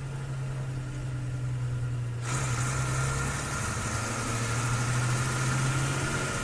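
A steady, engine-like hum, used as a sound effect; a brighter hiss joins about two seconds in.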